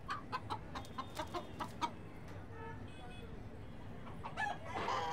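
Rooster clucking: a quick run of short, sharp clucks, about four a second, in the first two seconds, then a louder, longer call near the end.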